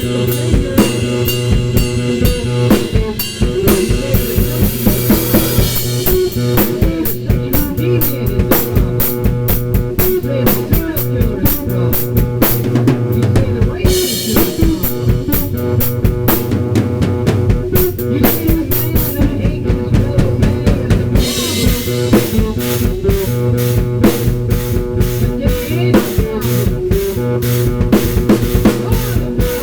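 Acoustic drum kit (Gretsch and Ludwig drums, Paiste cymbals) played in a loose, fast improvisation: dense bass drum, snare and rimshot hits, with stretches of crashing cymbal wash. A steady low sustained tone runs underneath.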